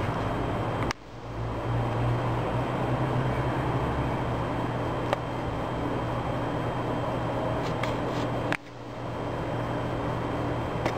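A steady low hum over a rushing background noise, with two sudden drops in level, about a second in and about eight and a half seconds in, each recovering over a second or so.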